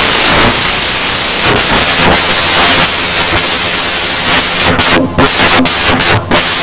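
Loud, steady static-like hiss covering all pitches and burying any other sound; it drops out briefly a few times near the end.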